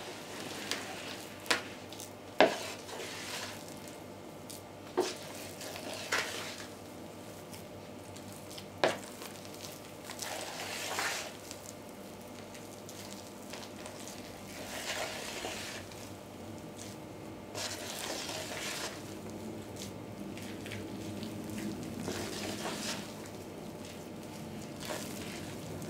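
A spoon folding whipped egg whites into a thick cottage-cheese batter in a plastic bowl, making soft wet swishes and squelches. A few sharp taps of the spoon against the bowl come through, the loudest about two and a half seconds in and about nine seconds in.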